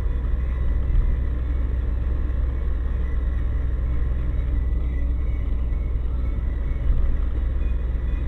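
Steady low rumble of a car driving, as picked up by a dashcam, with no impact or crash heard.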